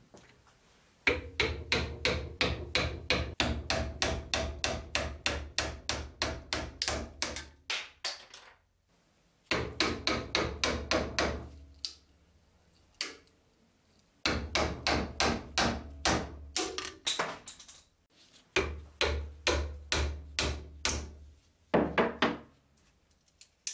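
A hammer striking a steel chisel in quick runs of blows, about four a second with short pauses between runs. The chisel is being driven between an old knife's riveted handle scales and its steel tang to split the handle off.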